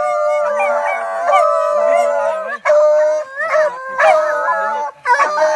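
Several hunting dogs howling together, their long calls overlapping and bending up and down in pitch, with a couple of brief breaks. The dogs are worked up over freshly caught game.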